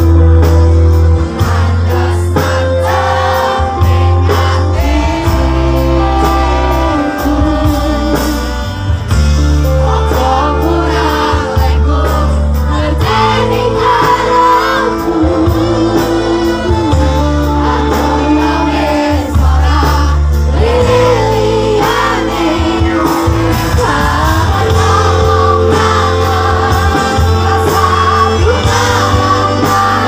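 A woman singing with a wavering vibrato over a live band of electric guitars, bass and drums, amplified through stage loudspeakers, with a heavy bass line that moves every second or two.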